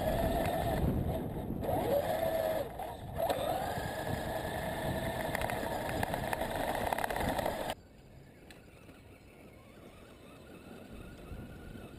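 Tamiya Tundra Highlift RC crawler's brushed electric motor (Tekin 35T) and geartrain whining, pitch rising and falling with the throttle, with two short breaks around three seconds in. It cuts off suddenly about eight seconds in, leaving only a faint background.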